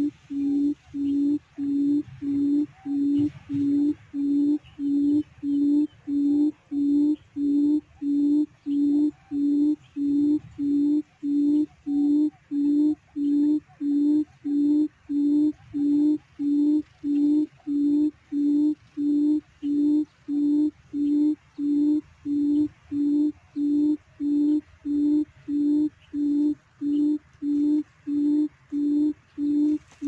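Quail lure call: short low hoots repeated at an even pace, about three every two seconds, drawing quail to the trap.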